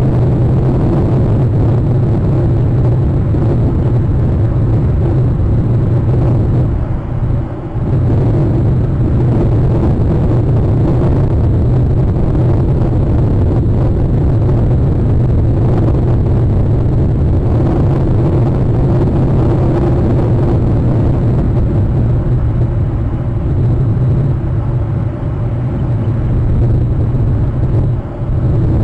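Loud, steady low rumble of wind buffeting an outdoor camera microphone. It eases off briefly twice, about seven seconds in and again near the end.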